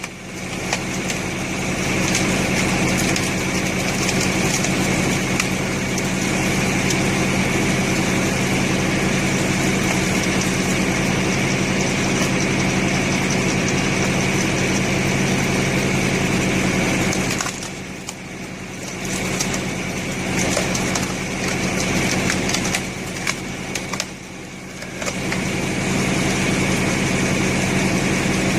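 Tractor engine running steadily while it drives a homemade screw log splitter. The sound drops away briefly twice in the second half.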